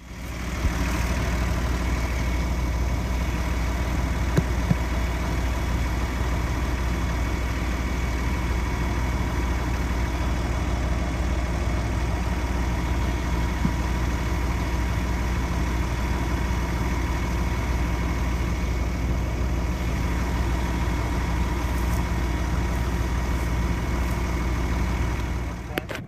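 Diesel engines of a combine harvester and a John Deere 4450 tractor running steadily at close range while the combine's auger unloads grain into the chaser bin. The sound cuts off shortly before the end.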